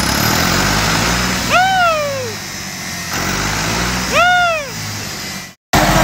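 John Deere tractor diesel engine running, with a home-made whistle fitted to its turbo sounding twice, about two and a half seconds apart. Each whistle rises and then falls in pitch over under a second, louder than the engine. The sound breaks off briefly near the end.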